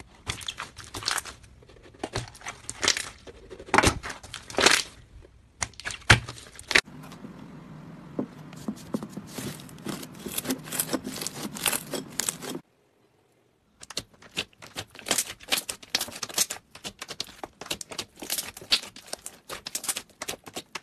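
Slime being squeezed, poked and stretched, giving dense crackling pops and sticky clicks in several short clips joined by abrupt cuts. One clip has a low steady hum beneath the clicks, and a second of silence falls about two-thirds of the way through.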